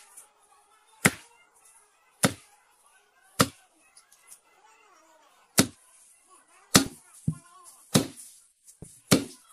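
A heavy knife chopping through pangasius fish into a wooden chopping block: about eight sharp chops, roughly one a second, with a longer pause in the middle and two chops close together near the end.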